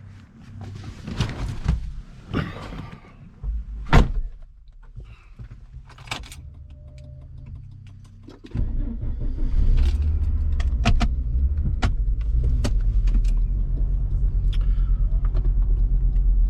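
Small knocks and rattles and one loud sharp knock about four seconds in, then a vehicle engine starts a little past halfway and runs with a steady low rumble.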